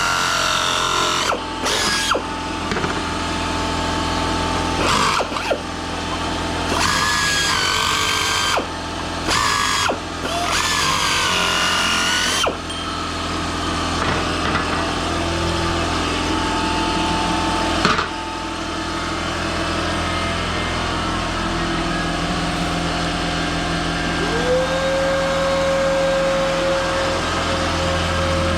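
A handheld electric power tool working aluminum sheet, running in several short bursts with brief stops, then more steadily at a lower level. A steady tone comes in near the end.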